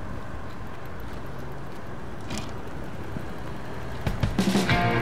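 Steady street background noise with a low traffic rumble. About four seconds in, music with plucked guitar starts and takes over.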